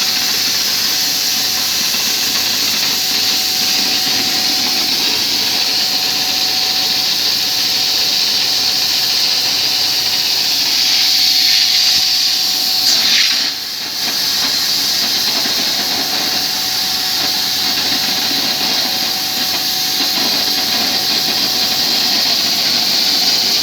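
Oxy-fuel flame cutting torch on a CNC cutting machine hissing steadily, with a faint steady hum underneath. About 13 seconds in, the hiss briefly sweeps down in pitch and dips in level, then carries on.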